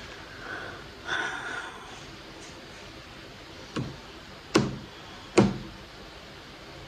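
Three sharp knocks or slaps about 0.8 s apart, the last two the loudest, after a brief soft breathy sound about a second in.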